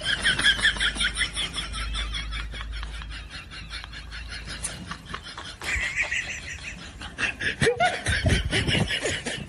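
Laughter in quick, repeated high-pitched pulses.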